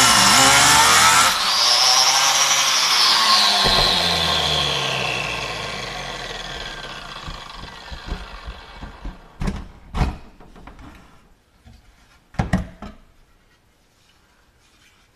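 Angle grinder with a cutoff disc cutting into an aluminium roof rail for about a second and a half. It is then let go and winds down, its whine falling in pitch and fading over several seconds. Three or four sharp knocks of metal being handled follow.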